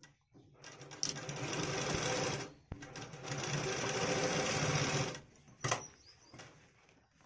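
Bharat domestic sewing machine stitching through layered trouser cloth in two runs of about two seconds each, with a brief stop between them. A single sharp click follows.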